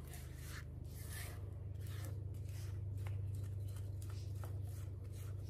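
Silicone spatula scraping buttermilk batter from the sides of a ceramic mixing bowl in repeated strokes, with a few light ticks. A steady low hum runs underneath.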